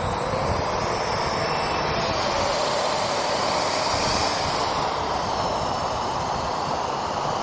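Parrot AR.Drone quadcopter's electric motors and rotors running with a steady whir, its pitch wavering slightly, as it works to get airborne.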